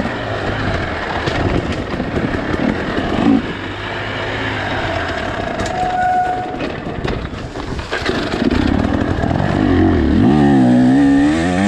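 2024 KTM 300 XC-W two-stroke dirt bike engine, breathing through an FMF Fatty expansion chamber and Powercore silencer, revving up and down under riding on an enduro trail. The revs rise and fall sharply and get louder near the end.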